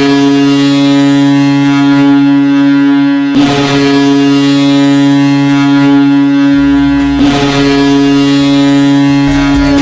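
Hockey arena goal horn, a deep ship-style air horn, sounding in long steady blasts. It starts a new blast about three and a half seconds in and again about seven seconds in.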